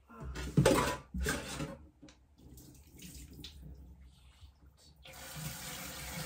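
A few knocks and clatters of things being handled at the counter in the first two seconds, then a kitchen tap turned on about five seconds in, water running steadily into a stainless-steel sink.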